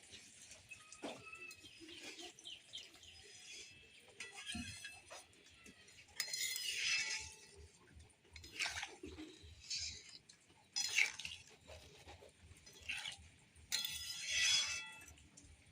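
Metal cooking utensils clinking and scraping against a pot in a few separate bouts, the louder ones at about six, nine, eleven and fourteen seconds in, with small ticks between them.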